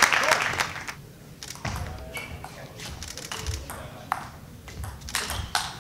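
Table tennis rally: the ball clicking sharply off the bats and the table about every half second. Crowd noise dies away in the first second.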